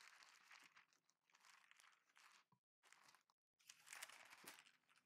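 Faint rustling of parchment paper under a metal rolling pin as dough is rolled thin between two sheets, then a louder crinkle as the top sheet is peeled back about four seconds in.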